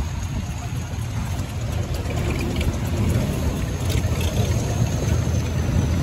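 Longtail boat engine running steadily with a low rumble, heard from aboard the moving boat.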